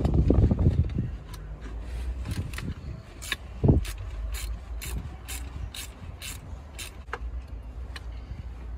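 Ratchet wrench clicking in a steady run of short strokes, about two to three clicks a second, while loosening the turbocharger's fixings. Low knocks of tool handling in the first second and a single heavy thump about four seconds in.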